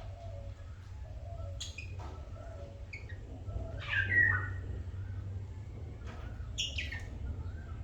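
Lovebirds giving scattered short squawks and chirps, the loudest a harsh call about halfway through.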